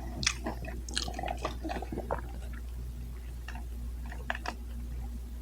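Close-miked chewing of sauced boneless chicken: wet mouth clicks and smacks, thick in the first two seconds and sparser after, over a steady low hum.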